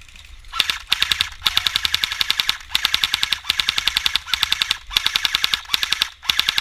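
Airsoft gun firing on full auto: a rapid rattle of shots in about eight quick bursts, starting about half a second in.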